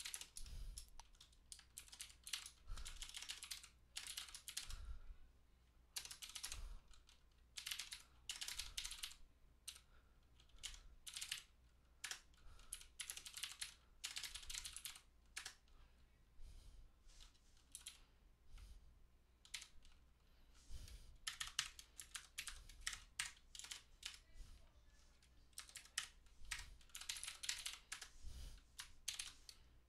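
Computer keyboard being typed on in quick bursts of keystrokes with short pauses between, as shell commands and file edits are entered.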